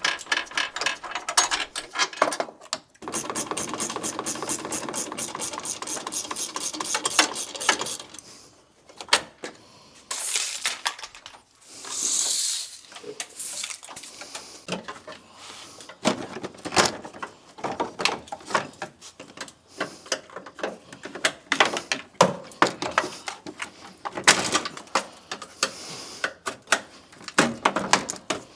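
Hand tools working on the truck's front end: a run of fast, even ratchet-like clicking for several seconds, a short hiss about twelve seconds in, then scattered clicks and metal knocks.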